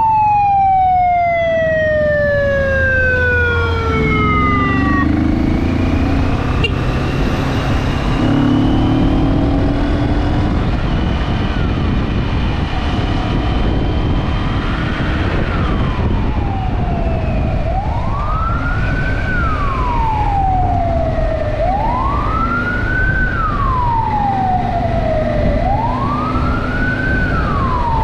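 Fire truck siren: one long falling tone over the first few seconds, then, from about halfway through, a slow wail rising and falling about every four seconds. Under it runs a steady low rumble of engine and road noise.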